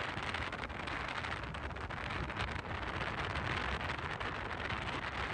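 Wind rushing over a microphone held outside the window of a moving car, with the car's tyre and road rumble underneath; a steady rush.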